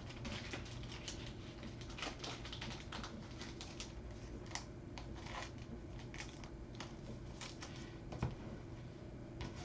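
Trading cards being handled and flipped through by hand: quick, irregular clicks and slides of card stock against card stock, several a second.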